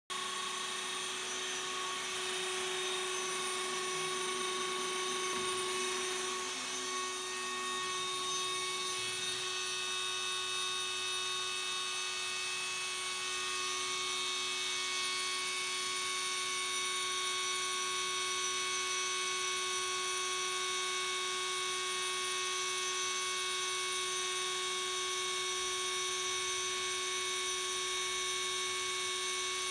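Small high-speed electric milling spindle on an industrial robot arm, running with a steady high whine.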